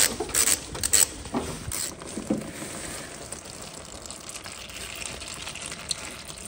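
A ratchet wrench clicks a few times in the first two seconds as the drain plug is backed out. Then old engine oil drains from the engine base of a John Deere S120 riding mower in a steady trickle into a pan below.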